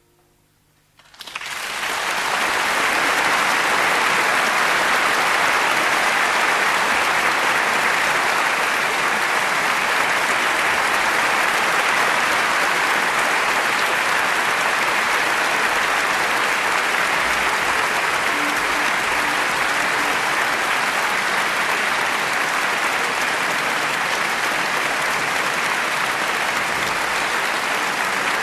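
Audience applause breaks out about a second in, after a moment of near silence, and holds steady and dense.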